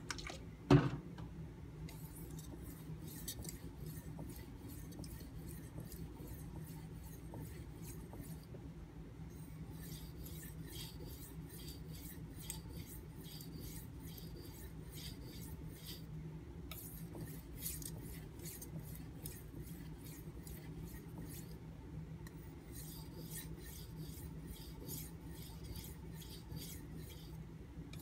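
Steel kitchen knife blade being stroked across a fine 4000 grit Nubatama Ume whetstone: short scratchy passes, about two to three a second, in runs with brief pauses between them. A single knock about a second in is the loudest sound.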